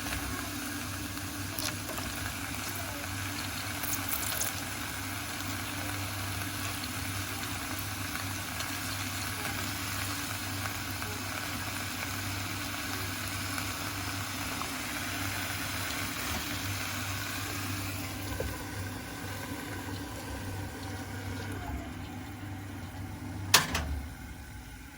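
Food cooking in a pot or pan on the stove, a steady hiss of frying or simmering, with one sharp knock near the end like a utensil striking the pan.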